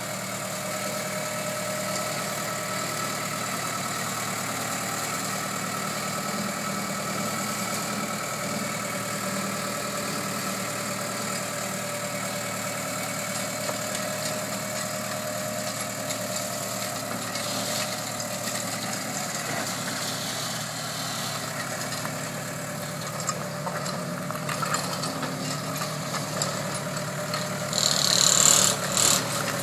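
Diesel engine of a Case 1845C skid steer loader running steadily as the machine works and drives. Louder bursts of higher-pitched noise come in near the end.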